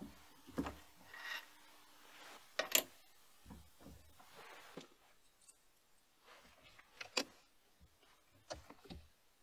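Scattered light clicks and metal taps as a small metal tool holder is handled and seated in a machine vise, with the sharpest knocks a little under three seconds in and again around seven seconds in.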